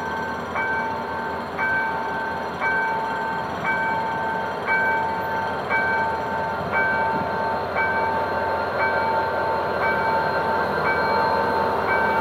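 Level crossing warning bell sounding an electronic chime about once a second, each stroke stepping from a short higher note into a held lower tone. Under it runs the steady rumble of a GM GT22CW-2 diesel locomotive hauling a passenger train slowly through the crossing.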